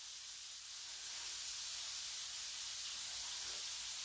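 Hamburger patties sizzling in a frying pan on the stove, a steady, even hiss.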